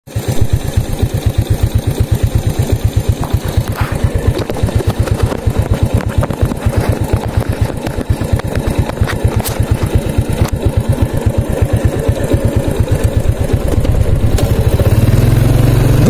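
SYM motorcycle's small single-cylinder engine idling with an even, regular chug, then speeding up into a smoother, steady hum in the last couple of seconds as it pulls away.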